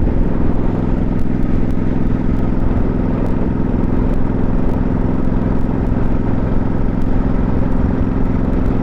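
Motorcycle engine running at a steady cruising pace, its note holding even without revving up or down.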